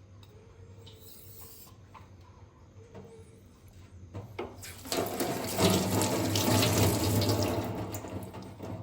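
Water running from a kitchen tap for about four seconds, starting about halfway through and tapering off near the end, over a faint steady hum.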